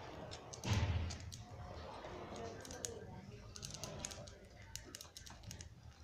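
Budgerigars feeding on fresh seeding grass in a cage: a run of quick, dry clicks and snips from their beaks working the grass stems, with one louder low thump about a second in.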